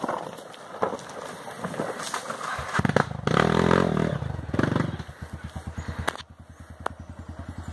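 Dirt bike engine: light clicks and scrapes at first, then about three seconds in the engine revs hard as the bike climbs a steep dirt slope. It drops back to lower revs with an even putter, quieter as the bike pulls away.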